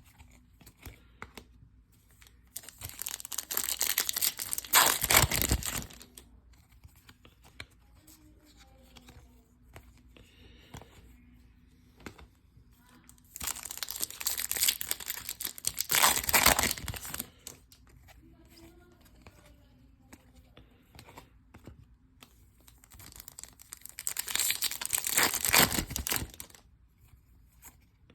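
Trading card pack wrappers torn open three times, each tear and crinkle lasting about three seconds, about ten seconds apart.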